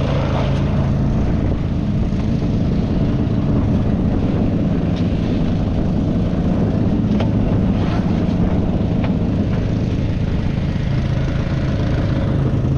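Small fishing boat's engine running steadily at an even speed, with a few faint knocks.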